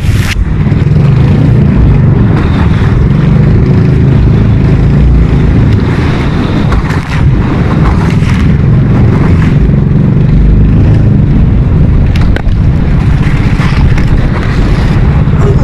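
Small fishing boat's engine running steadily, a loud low rumble.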